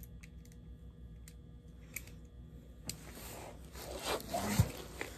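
A few faint clicks, then about three seconds in a second or two of scraping and rustling as the small metal truck frame of a model diesel locomotive is worked apart by hand.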